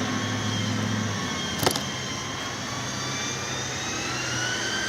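Steady machine hum with a faint high whine that slowly wavers; a low tone drops away about a second in, and a single click sounds near the middle.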